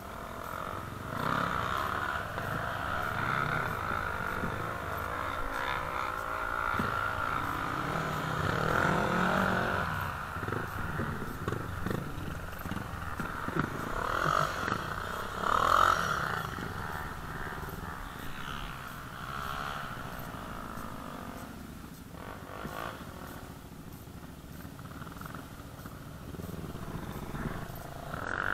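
ATV (quad bike) engines running and revving, their pitch rising and falling as the quads accelerate and ease off. The loudest rev comes about halfway through.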